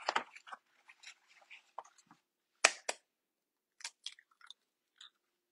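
Faint crackles and clicks of eggs being cracked over a mixing bowl and their shells broken open, with a sharp tap about two and a half seconds in.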